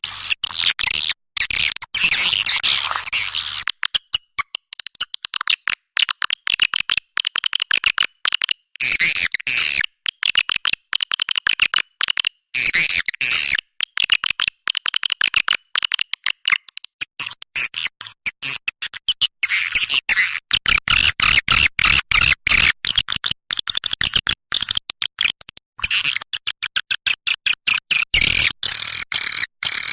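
Swiftlet calls used to lure birds to a nest house: dense, rapid chirping and twittering in a continuous edited loop.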